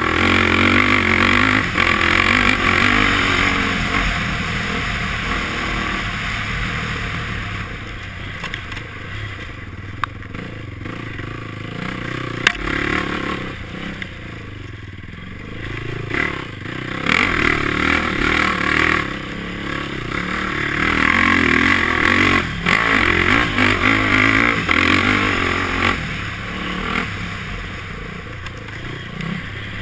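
Honda ATV engine on the move, revving up and down: it pulls hard at first, eases off for several seconds in the middle, then pulls hard again in the latter half. A few sharp knocks from the machine over bumps.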